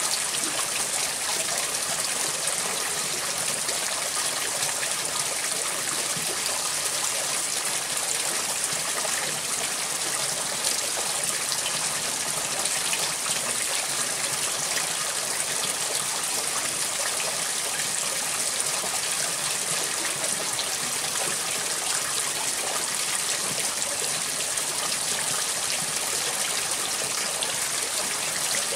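Water running steadily from a hose into a plastic basin and spilling over its rim onto the board below.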